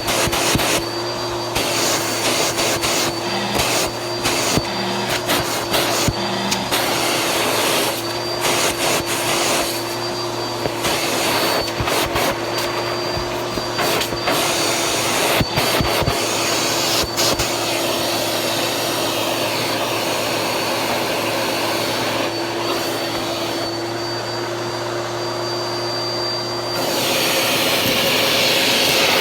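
Vacuum cleaner running steadily with a high motor whine, broken by frequent clicks and rattles. About 27 seconds in it gets louder and hissier.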